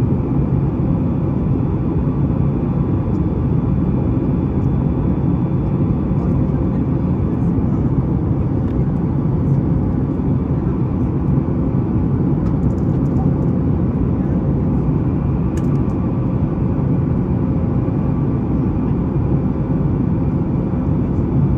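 Steady low rumble inside the cabin of a Boeing 737-9 MAX in flight after takeoff, its CFM LEAP-1B engines and the air noise heard from a window seat, with a faint steady hum above it.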